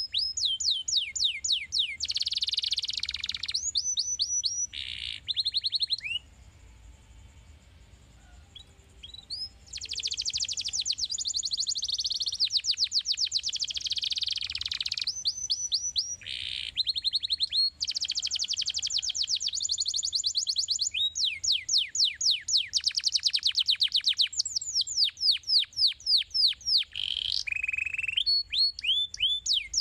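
Domestic canary singing: fast trills of rapidly repeated falling notes in short runs that change every second or two. It pauses for about three seconds starting about six seconds in.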